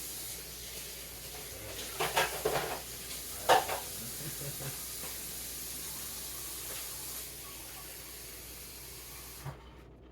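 Water poured into a hot frying pan hissing and sizzling into steam, with a few louder splashes early on the pour, then cutting off suddenly near the end.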